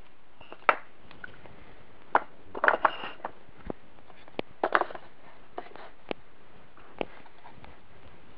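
Steel gears and cast-iron differential parts of a lawn-tractor transmission clinking and knocking against each other and the wooden blocks as the assembled differential is turned over and its axle shaft handled. Sharp knocks come singly and in short clusters, the busiest about three and five seconds in.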